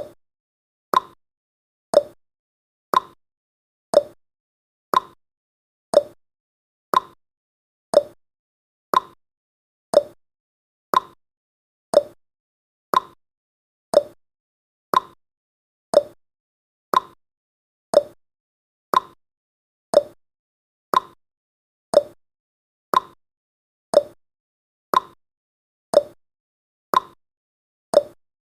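Clock tick-tock sound effect, one short tick each second, alternating between a higher tick and a lower tock.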